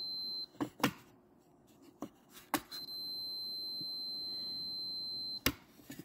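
Fluke multimeter's continuity beeper sounding a steady high-pitched tone, cutting off about half a second in and sounding again from near the middle until shortly before the end: the probes are reading continuity across the table saw switch's contacts. A few sharp clicks come between and after the beeps.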